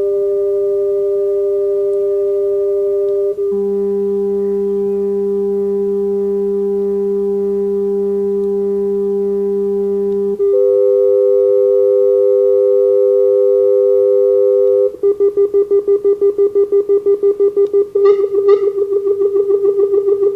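Electronic test tones from a tone generator run through a multi-effects pedal: one steady pitched tone held throughout, with other tones layered over it that change abruptly about three and ten seconds in. About fifteen seconds in, an effect makes the sound pulse rapidly, about six or seven times a second.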